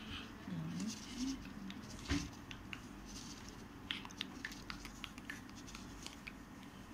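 Thin insulated wires being twisted together by hand: faint scattered ticks and rustles of wire and paper, with one sharper click about two seconds in.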